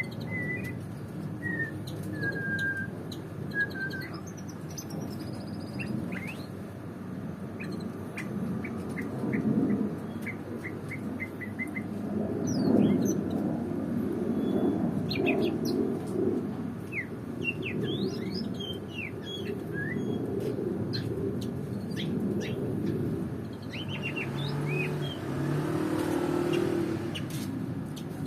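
White-rumped shama (murai batu) singing a varied song of short whistles and quick chirps, with a run of rapid repeated notes about a third of the way through. A steady low rumble runs underneath.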